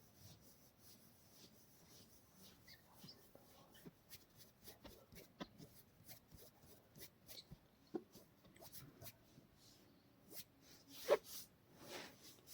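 Hands massaging oiled skin or hair: faint, scattered rubbing and soft sticky ticks. There is one short louder sound about eleven seconds in.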